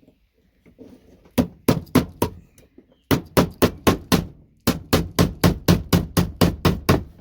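Hammer blows knocking VGA connectors loose from scrap electronics: sharp, quick strikes at about four a second, in three runs with short pauses between, the last run the longest.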